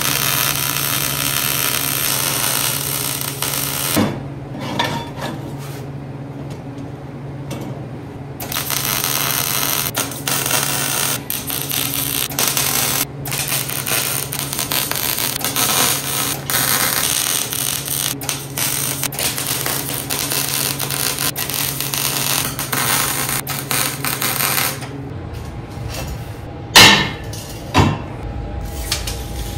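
Wire-feed welder crackling as it lays beads on steel square tubing, with a few seconds' pause about four seconds in and a steady low hum under the welding. The welding stops near the end, followed by a few sharp metal knocks as the welded frame is handled.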